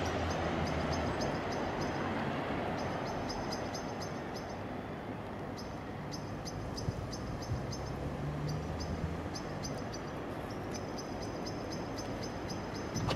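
DB class 185 electric locomotive hauling a freight train, approaching slowly from a distance: a steady rumble with a low hum that swells twice, once near the start and again about halfway through. Short, high chirps repeat over it.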